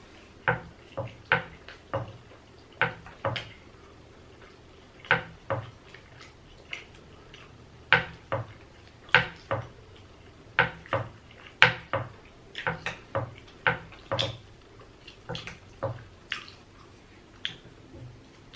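Close-miked mouth smacking while eating: short wet clicks of lips and tongue in irregular clusters, a few every second or two.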